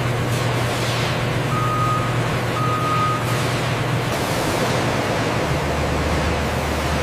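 A vehicle running with a steady low hum, with two short, evenly pitched warning beeps, like a reversing alarm, about one and a half and two and a half seconds in; the hum drops lower about two-thirds of the way through.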